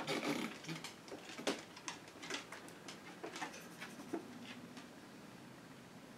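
Scattered small clicks and rustles of a LipSense lip colour tube and its wand applicator being handled and worked on the lips, thinning out after about four seconds to faint room tone.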